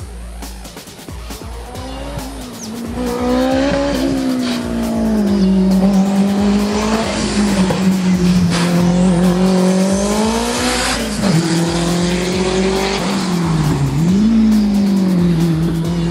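Hillclimb race car engine at full throttle, growing louder as it approaches and passes. The engine note rises and falls with gear changes and throttle lifts, dropping sharply in pitch twice near the end.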